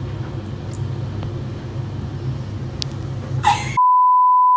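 A steady low hum of background noise, then a short sudden burst, cut off just before four seconds in by a loud, steady, high-pitched test-tone beep of the kind played over TV colour bars.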